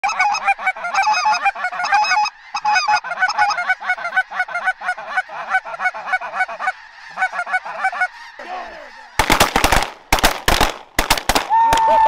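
A large flock of snow geese calling, dense overlapping high-pitched honks, dying away after about eight seconds. Then a rapid volley of shotgun blasts, about ten shots in two seconds, with a single falling tone at the very end.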